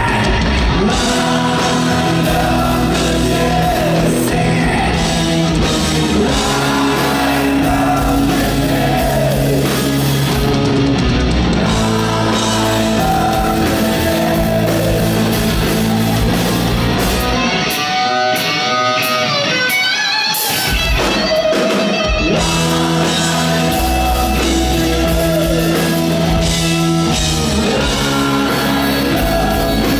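Live hard rock band playing loud, with electric guitars, drums and singing, recorded from the crowd. About 18 seconds in, the bass drops out for a few seconds, leaving a higher wavering part before the full band comes back in.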